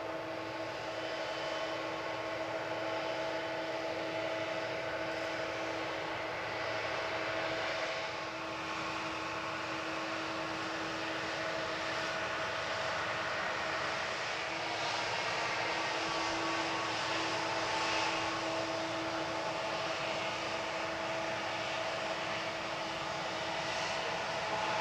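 Boeing 777 jet engines running steadily: a hiss with several constant whining tones, neither spooling up nor down.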